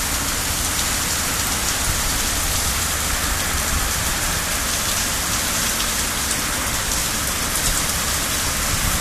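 Heavy rain pouring down steadily on a backyard lawn and garden, an even, unbroken hiss.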